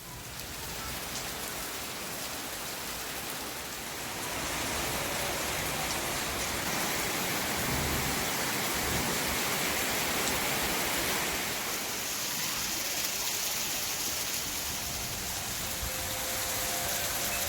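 Steady rain falling, a dense even hiss that grows louder about four seconds in and then holds steady.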